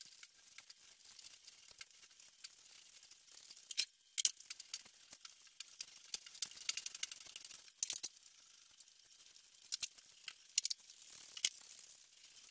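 Paint roller on an extension handle rolling white paint across a board tabletop: a faint, crackly hiss with frequent small clicks.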